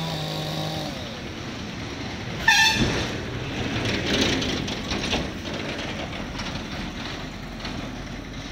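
Road traffic: a nearby engine runs steadily and cuts out about a second in. About two and a half seconds in a vehicle horn gives one short beep, the loudest sound. Vehicles then pass, swelling and fading.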